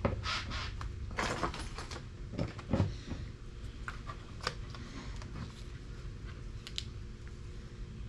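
Painter's tape being handled and pressed onto a motorcycle side cover. It crinkles and rustles for the first few seconds, then gives scattered light taps and clicks.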